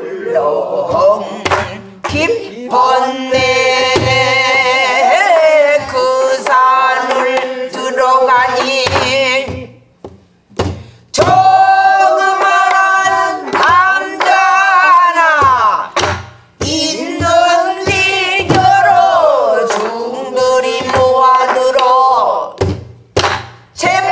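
A woman sings pansori-style dan-ga in long held notes with a wide, wavering vibrato and sliding pitch. She accompanies herself with stick strokes on a buk barrel drum. The singing breaks off briefly about ten seconds in.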